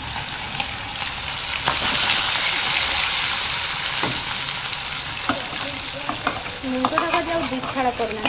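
Masala-marinated fish pieces sizzling loudly in hot mustard oil in a kadai as they go in to fry, with a few sharp metal clicks of the spatula against the pan.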